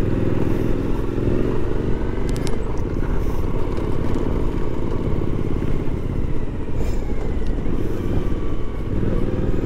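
Motorcycle engine running steadily while the bike is ridden two-up along a rough dirt track, heard from a camera mounted on the bike, with rumbling noise from the track.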